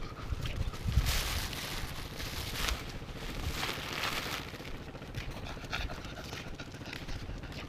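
Wind buffeting the microphone in an uneven low rumble, with brief hissy gusts and soft rustling and scuffing as the camera moves along.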